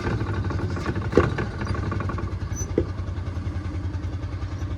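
Small gasoline golf cart engine turning over on its starter with a fast, even chugging rhythm without catching, likely flooded.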